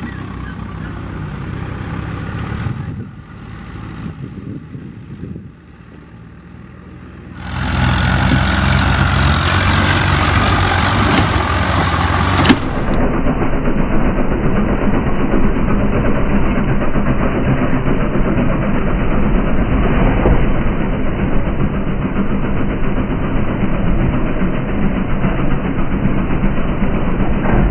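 Tractor diesel engines running hard through wet mud, chiefly a Swaraj 744 FE's three-cylinder diesel working a rear rotavator. The engine is fainter and distant for the first few seconds, dips, then turns loud and close from about eight seconds in. Around the middle the sound abruptly turns duller, and the loud engine keeps running.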